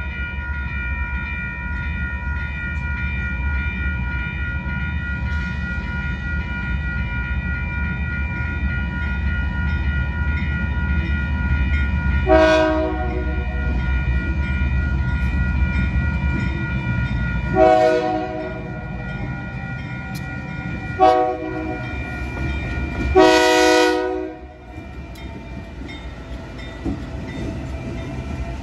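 Arizona Eastern diesel locomotives, running light, rumble in as they approach the crossing. About halfway through the lead unit sounds its horn in the grade-crossing pattern: two long blasts, a short one and a final long one. A crossing signal bell rings steadily under it all, and near the end the lead locomotive rolls past.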